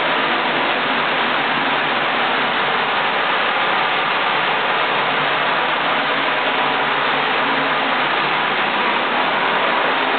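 Water rushing out of a burst water pipe and flooding across a bathroom floor. It is a loud, unbroken hiss that stays steady throughout.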